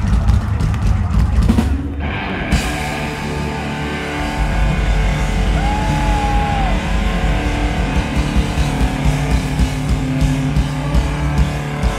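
Live power trio of electric guitar, electric bass and drum kit playing hard rock. About two seconds in the sound opens up into sustained distorted chords over the bass and drums, and near the middle a held note bends up and back down.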